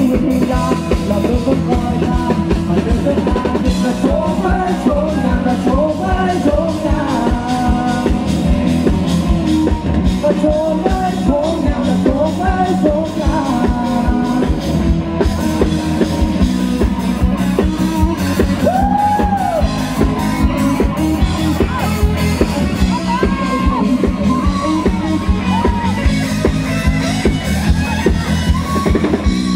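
A live rock band plays loudly through a PA, with drum kit and bass under a lead line of bending notes on electric guitar.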